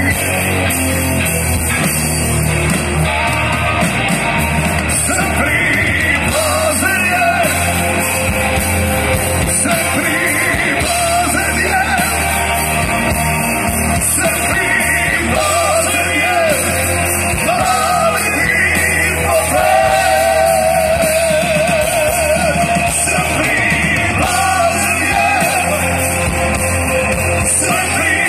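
Live rock band playing loud, heard from within the crowd: drums, electric guitars and bass with a wavering lead melody riding above them.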